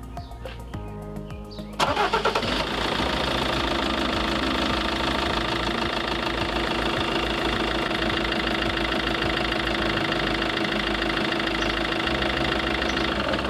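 Iveco Daily diesel engine starting with a sudden burst about two seconds in, then idling steadily, unrevved, just after an oil change while the new oil works its way around. It cuts off just before the end.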